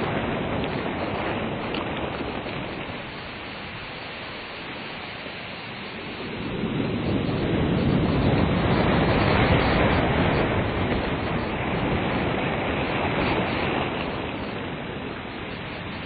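Ocean waves breaking and washing up a beach, a steady roar of surf that eases off, swells again about six seconds in and ebbs near the end.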